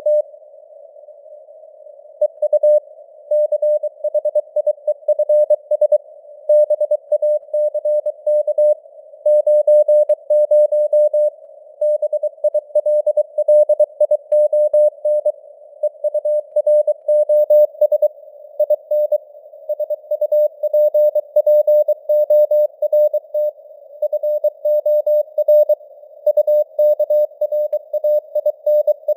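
Morse code (CW) sent at 23 words per minute as a single tone of about 600 Hz, keyed on and off in dots and dashes over a bed of simulated radio noise. A gap of about two seconds comes just after the start, then the keying runs on.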